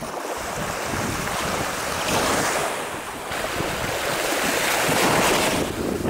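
Small waves washing and lapping in the shallows, mixed with wind rumbling on the microphone. The wash swells about two seconds in and again around five seconds in.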